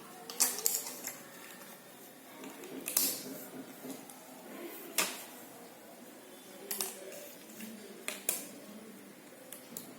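Scattered light clicks and taps of jigsaw puzzle pieces being picked up, set down and pressed together, about ten irregular knocks with quiet between them.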